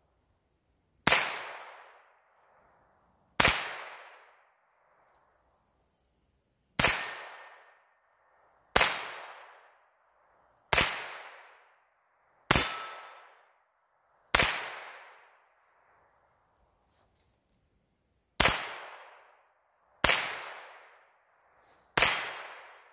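Hammerli TAC R1 .22 rimfire semi-automatic rifle fired ten single shots at an unhurried pace, about two seconds apart with a longer pause near the middle. Each shot is a sharp crack that dies away over about a second.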